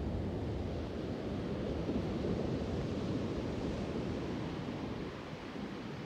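Steady wash of Pacific Ocean surf breaking on a sandy beach, with wind rumbling on the microphone, the rumble easing toward the end.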